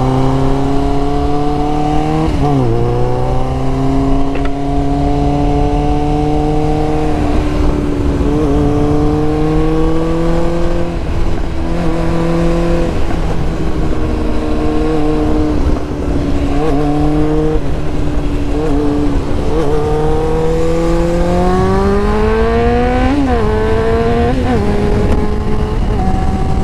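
Suzuki sport motorcycle engine pulling along the road, its pitch climbing under throttle and dropping sharply at each gear change or roll-off, several times over, with a long climb near the end. A steady rush of wind noise lies under it.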